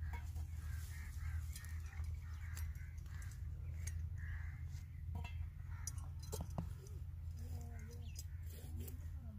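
Crows cawing repeatedly, with a few sharp metallic clicks of tongs and coals about five to seven seconds in, over a steady low rumble.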